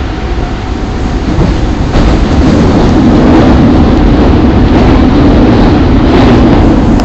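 Running sound of an Osaka Municipal Subway Series 21 (new 20 series) train: steady wheel and traction noise that grows louder about two seconds in, then holds.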